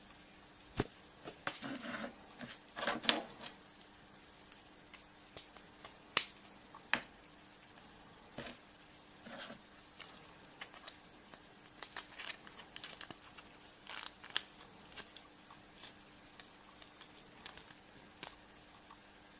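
Hands unwrapping and opening chocolate surprise eggs: foil wrapper crinkling and small plastic clicks, in scattered crackles and sharp ticks, with a sharp click about six seconds in.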